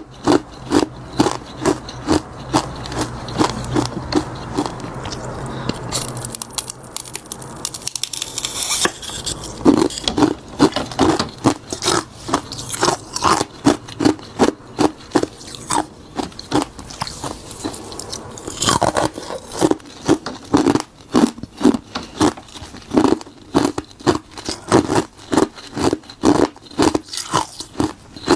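Close-miked biting and chewing of frozen bitter buckwheat tea ice: sharp, rapid crunches about two to three a second. A few seconds in, the crunching thins out briefly under a scraping hiss.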